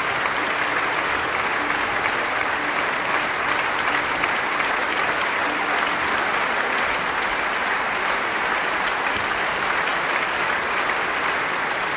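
A large audience applauding steadily: dense, even clapping at a constant level.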